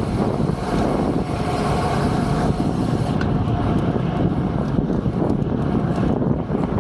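Wind rushing over the microphone of a camera on a bicycle moving at speed, over the steady noise of city traffic.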